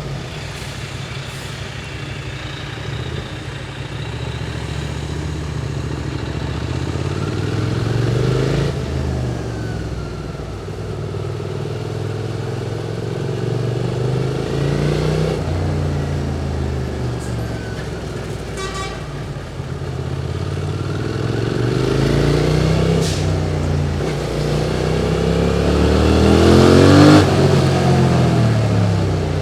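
QJ Motors SVT650X motorcycle engine through its Arrow slip-on exhaust, accelerating in city traffic: the revs rise and fall again and again as it pulls through the gears and eases off, loudest about 27 seconds in.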